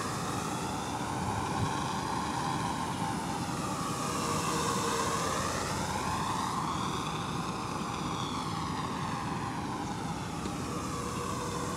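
LotusRC T380 quadcopter's electric motors and propellers buzzing steadily in flight, its tone sweeping down and back up through the middle as it moves about.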